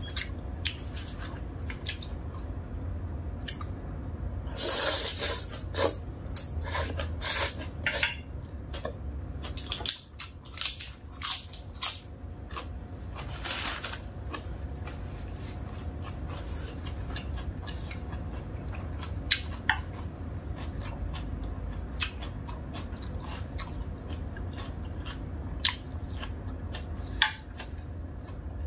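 Close-up eating sounds: a person chewing mouthfuls of dry stir-fried instant noodles and raw leafy greens, with clusters of louder bites and crunches about five seconds in and again around ten to fourteen seconds in, and sparser small mouth clicks after. A steady low hum runs underneath.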